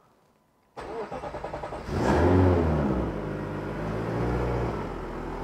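The Alfa 105's Ferrari engine being started: about a second of starter cranking, then it catches and revs up briefly before settling to a steady idle as it warms up.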